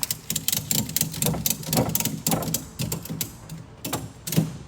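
Ratchet strap being cranked tight, a run of rapid, uneven ratcheting clicks, to tie down a pulled engine in a pickup bed.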